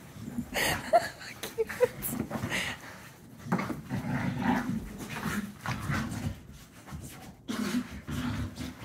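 A dog scuffling on carpet and making short grunting and whining noises in irregular bursts as it bucks and twists against a plush neck pillow, with a few brief high squeaks a second or two in.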